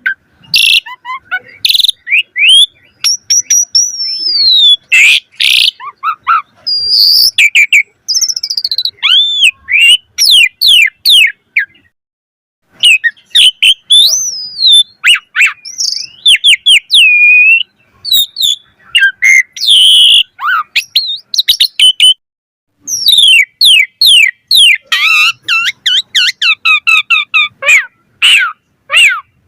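Javan pied starling (jalak suren) singing vigorously: a long, varied run of rapid chirps, whistles and sliding notes, broken by two short pauses.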